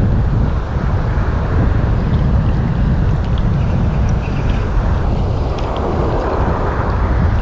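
Strong wind buffeting the microphone, a loud, gusty rumble with the sea underneath.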